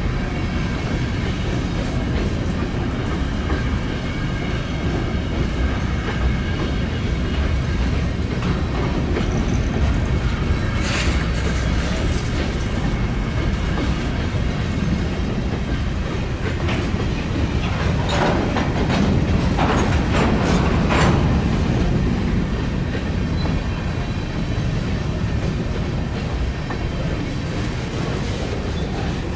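Railroad cars rolling past, the wheels clicking over rail joints in a continuous rumble. There are a few brief, sharper metallic sounds about a third of the way in and again around two-thirds through.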